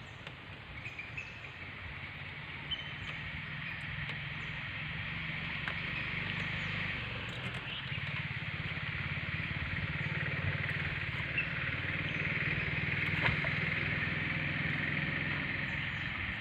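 A small engine running steadily, with a low, evenly pulsed hum that slowly grows louder, under a steady high hiss.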